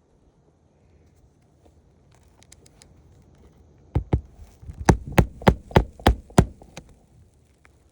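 Hammer driving a roofing nail into a laminate asphalt shingle: about eight sharp strikes, roughly three a second, starting about four seconds in.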